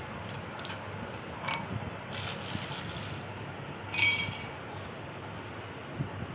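Kitchen utensils handled on a marble floor: a steel spoon, a knife and a glass tumbler make a few light clicks and knocks. A brief rustle comes about two seconds in, and a louder, sharp clink about four seconds in.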